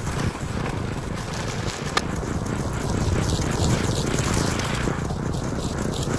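Walk-behind string trimmer's small engine running steadily as it cuts through thick tall grass.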